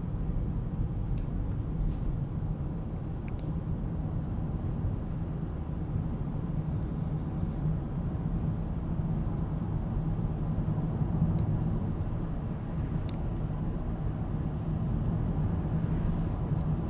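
Car driving along a road: a steady low rumble of engine and tyres, with a few faint ticks.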